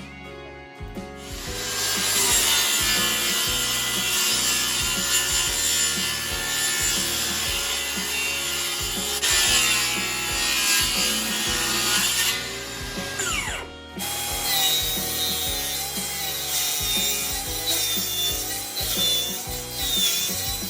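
Electric power tool working wood, running in two long passes with a brief stop about 14 seconds in.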